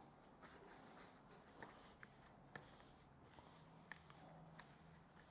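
Near silence: room tone with a few faint, light clicks as small glued-up blank pieces are handled on a workbench.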